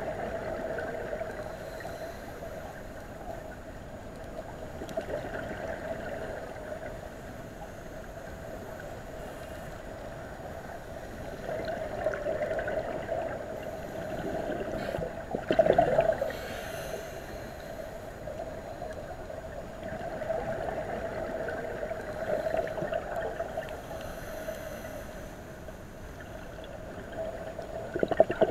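Muffled underwater sound heard through a diving camera's housing: a steady hum with gurgling swells every few seconds, typical of scuba divers' exhaled regulator bubbles, the loudest gurgle about halfway through.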